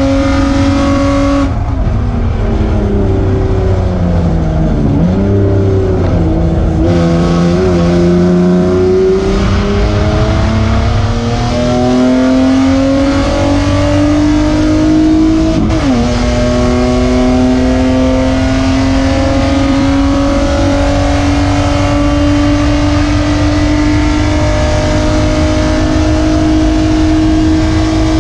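Onboard sound of a BMW E36 Spec3 race car's engine and exhaust under racing load, loud and raspy with its muffler blown. The revs fall about 1.5 s in as the car slows for a corner, climb steadily for several seconds under full throttle, drop briefly at an upshift near the middle, then hold high.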